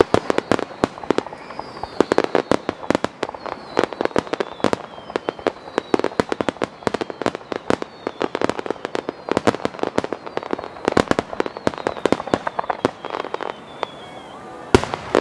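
Fireworks display: a fast, dense barrage of bangs and crackles from a rapid salvo, threaded with high thin tones that fall in pitch. A louder bang comes near the end.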